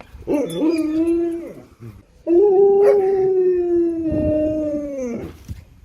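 A dog howling twice: a short howl, then a longer, steady one that drops in pitch as it ends.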